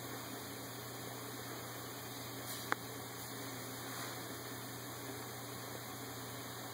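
Steady room tone: an even hiss with a low hum underneath, broken once by a single sharp click a little under three seconds in.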